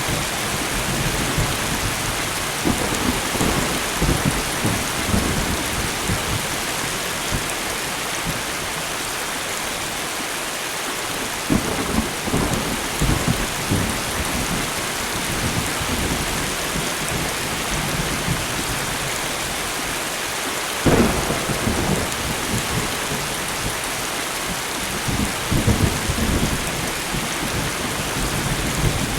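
Steady rain hiss with thunder rumbling several times, including one sharper, louder clap about two-thirds of the way through.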